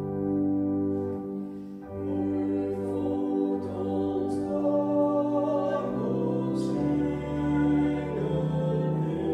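Electronic organ playing a slow hymn in held chords, with a man and a woman singing along from hymn books; the music dips briefly between phrases about two seconds in.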